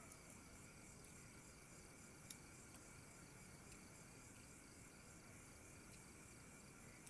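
Faint steady chorus of crickets and other night insects, several high-pitched trills going at once, with a single soft click a little over two seconds in.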